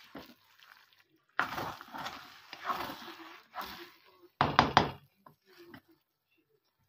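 Spatula stirring and scraping cooked paella rice around a nonstick pan, followed about two-thirds of the way in by a quick run of a few sharp knocks of the utensil against the pan.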